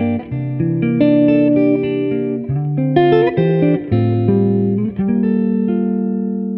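Background music: a plucked guitar melody over bass notes.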